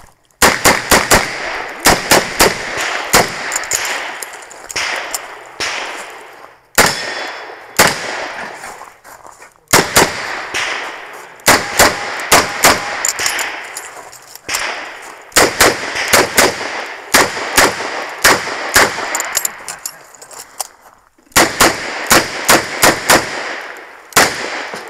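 Smith & Wesson 929 9mm revolver firing in quick strings of shots, several a second, with a few short pauses between strings.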